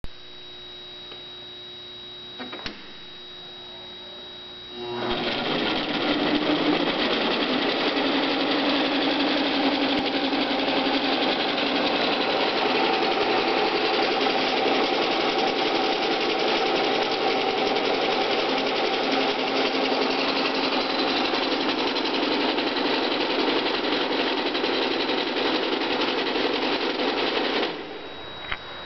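MBM Dynafold tabletop paper folder starting up about five seconds in, its motor and rollers running with a steady mechanical clatter, then stopping suddenly near the end. A faint steady hum is heard before it starts.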